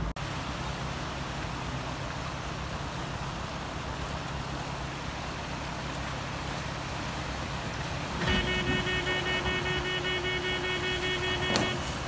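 Rushing stream water, with a vehicle's engine under it. About eight seconds in, a car horn sounds one long, steady blast of about three and a half seconds.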